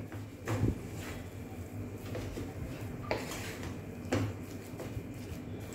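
Wooden spatula stirring and scraping mashed potato filling in a non-stick kadai, with a few soft knocks of the spatula against the pan. A low steady hum underneath.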